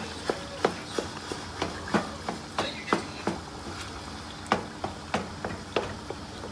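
Wooden spoon knocking against the side of a metal pot as it stirs tomatoes in liquid, a sharp knock two or three times a second, with a short pause about halfway through.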